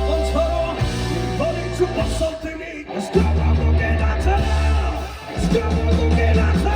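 Rock band playing live at a sound check: heavy sustained bass with guitar and a singing voice over it. The bass drops out briefly twice, about a third of the way in and again near the end.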